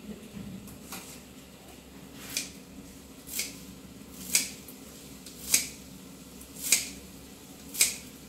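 Kitchen scissors snipping fresh coriander leaves, with a sharp crisp snip about once a second, around seven in all.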